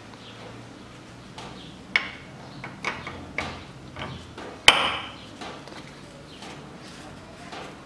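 Metal strut parts knocking and clicking by hand as the upper mount and bearing cup are set onto the compressed coil spring of a front strut: a string of sharp knocks, the loudest a little after halfway.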